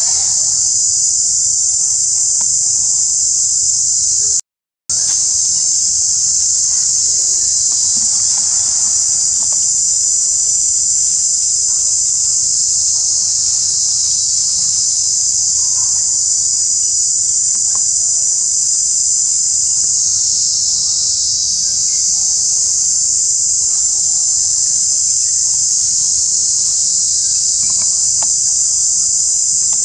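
Steady, high-pitched drone of a forest insect chorus, which cuts out for a split second about four and a half seconds in.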